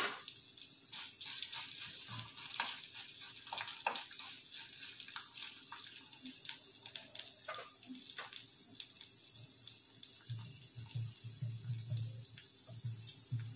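Hot oil sizzling in a clay pot, with mustard seeds, cumin and dried red chillies frying in it; the mustard seeds pop in sharp, irregular crackles over a steady hiss. This is the spluttering stage of tempering, the sign that the oil is hot and the seeds are bursting.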